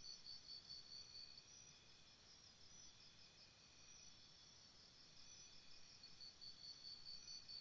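Near silence, with a faint high-pitched pulsing chirp repeating several times a second. It fades out about a second and a half in and comes back near the end.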